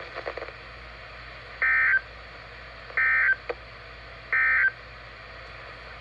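Emergency Alert System end-of-message data tones from a NOAA weather radio: three short, identical buzzy digital bursts about a second and a half apart, over the receiver's steady hiss. They mark the end of the severe thunderstorm warning broadcast.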